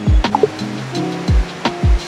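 Background music: a beat with deep, booming kick drums, light hi-hat ticks and held keyboard notes over them.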